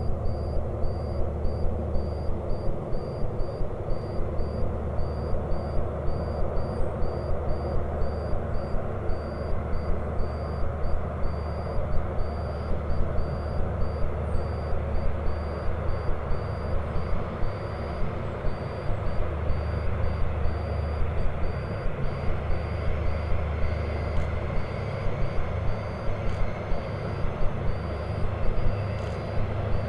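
Diesel train engine running hard for a long stretch, with a steady low drone and a regular pulsing a few times a second.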